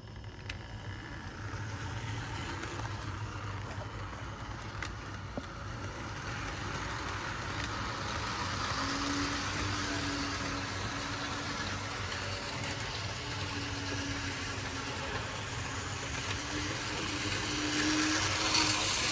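Ibertren Talgo model locomotive running on the track with its coaches: the pancake motor's whir and the wheels' rattle on the rails, with a few light clicks. A steady low hum joins about halfway through, and the sound grows louder near the end.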